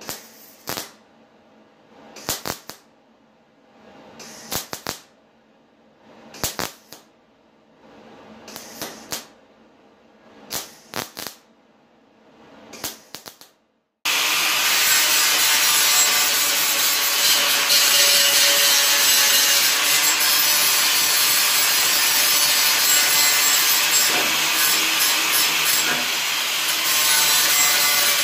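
Wire-feed (MIG) welder laying short stitch welds on a steel pipe, one brief crackling burst about every two seconds. About halfway through it switches abruptly to an angle grinder grinding the pipe steadily, much louder.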